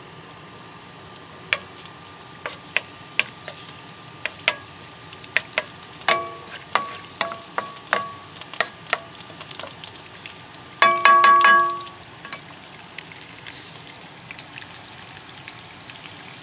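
Minced garlic in olive oil starting to fry in a frying pan over high heat: a faint sizzle with scattered small pops. From about six seconds in there are short ringing clinks, with a louder cluster of them about eleven seconds in.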